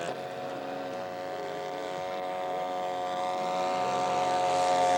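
Engine of a large-scale radio-controlled model airplane running steadily in flight, a constant droning tone that grows gradually louder toward the end.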